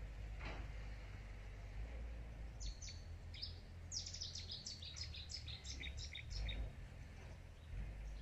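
A small bird chirping: a quick run of short, high notes beginning about two and a half seconds in, about four a second at its busiest, ending shortly after six seconds, over a low steady rumble.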